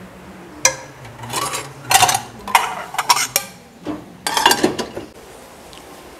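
Cookware and utensils clattering, a run of sharp clinks and knocks of metal on metal. It starts just under a second in and stops about five seconds in.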